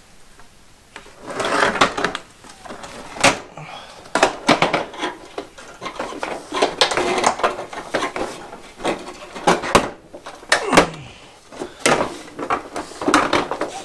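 Frosted plastic diffuser lid being fitted onto the sheet-metal housing of a four-tube fluorescent light fixture: repeated clicks, knocks and scraping as the plastic is pressed and slid into place, starting about a second in.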